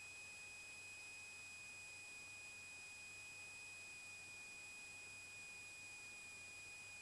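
Near silence apart from a faint, steady, high-pitched electrical whine in the Cessna 182's intercom audio feed; no engine sound comes through.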